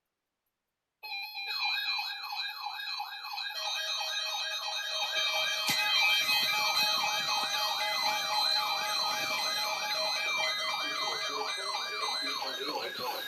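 Electronic siren in a fast yelp, about three rising-and-falling sweeps a second, layered with steady and warbling higher tones. It starts abruptly about a second in.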